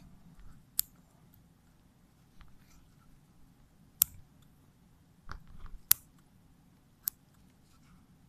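Dissecting scissors snipping through the fur and tissue of a small animal: a handful of sharp, short snips at irregular intervals, the loudest about four and six seconds in.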